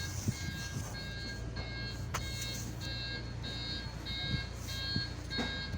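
An electronic warning beeper on a forklift sounding a steady on-off beep, about two beeps a second, over a low steady hum.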